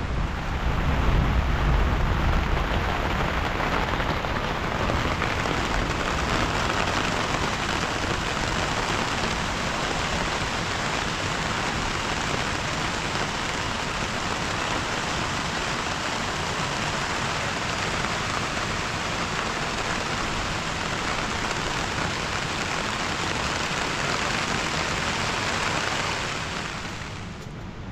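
Steady hiss of heavy rain, with a low rumble in the first few seconds; the rain sound falls away near the end.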